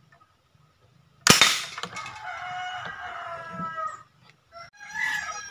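A single sharp shot from a PVC bolt-action toy gun about a second in, followed by a rooster crowing for about two seconds with its pitch slowly falling, and another short call from the bird near the end.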